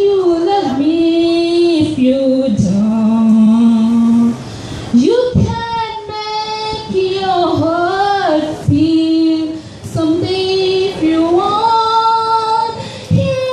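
A woman singing solo into a microphone, a slow melody with long held notes and pitch glides between them.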